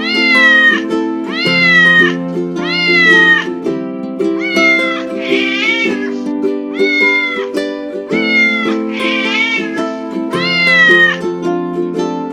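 Domestic cat meowing again and again, about nine calls each rising then falling in pitch, over background music.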